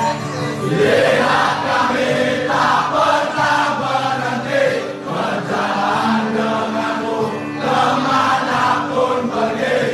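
Crowd of football supporters singing a chant together, many male voices in unison, loud and continuous.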